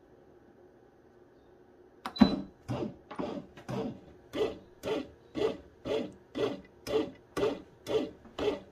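Bread machine's kneading motor starting on the dough program after about two seconds, turning the paddle in short on-off pulses about twice a second to start working the flour into the dough.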